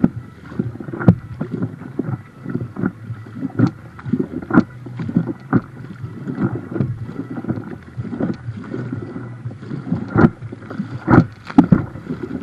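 River water lapping and slapping against the hull of a floating boat right beside the waterline, in irregular splashy slaps over a continuous wash.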